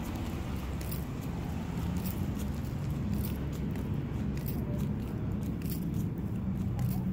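Walking outdoors: a steady low rumble of open-air background with light ticks or jingles about twice a second, in step with the walk.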